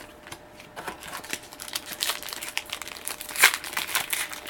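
Foil wrapper of a Yu-Gi-Oh trading-card booster pack crinkling and tearing as it is handled and opened by hand, an irregular crackle that builds after about a second, with its sharpest crackle near the three-second mark.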